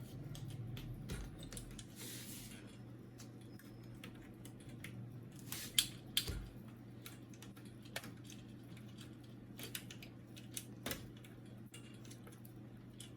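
Small plastic clicks and rattles of wire connectors being eased out and cables handled inside a laser printer being taken apart, with two sharper clicks about six seconds in. A low steady hum runs underneath.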